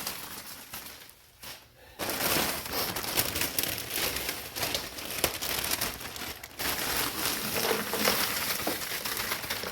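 Crinkling and crackling from a plastic bag of broken-up dry ice being handled. It is faint at first, then dense with small clicks from about two seconds in, with a brief lull past the middle.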